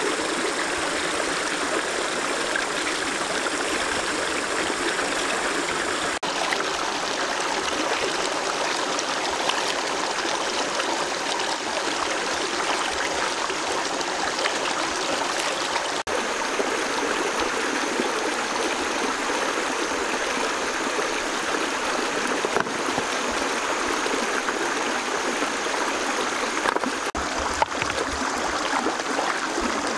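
Shallow stream running over rocks, a steady, even sound of flowing water.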